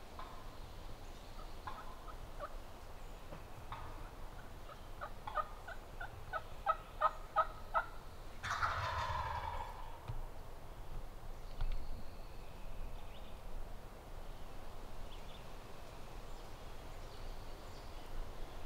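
A wild turkey gobbler gobbles once, about eight and a half seconds in: a loud rattling call of about a second and a half that falls in pitch. Just before it comes a quick run of about eight short, sharp calls.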